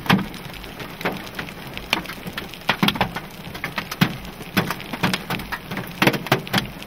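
Hailstorm: hailstones striking hard surfaces in irregular sharp knocks, a few a second, over a steady hiss of falling rain.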